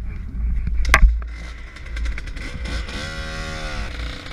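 A short guitar music sting, over a low wind rumble on the microphone, with a sharp knock about a second in.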